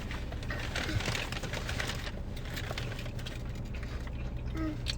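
Close-up chewing of crunchy fried onion rings, crisp crackles densest in the first couple of seconds, over a steady low hum from inside the parked car.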